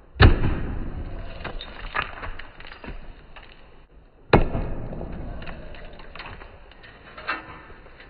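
Concrete being broken up: two heavy impacts about four seconds apart, each trailing off over a couple of seconds, with smaller knocks and clatter between them.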